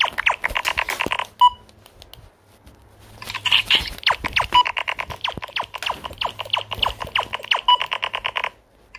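Electronic sound effect from a battery-powered light-up laser toy: a rapid, even beeping rattle at about ten pulses a second, in a short burst, a pause of a couple of seconds, then a longer run that stops shortly before the end.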